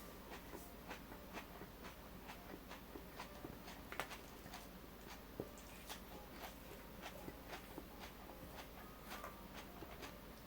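Scattered light clicks and taps, irregular and faint, with a sharper click about four seconds in, over a steady low hum.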